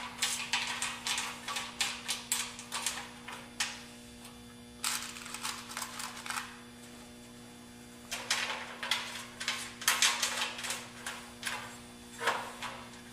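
Irregular light metallic clicks and taps from hands fitting a nut onto a T-bolt and seating aluminium greenhouse framing bars, in three spells, over a steady low hum.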